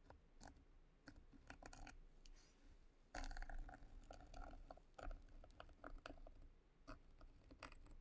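Faint scratching and scattered light clicks of a needle tool cutting through a soft clay slab and catching against a wire rim template, denser for a couple of seconds in the middle.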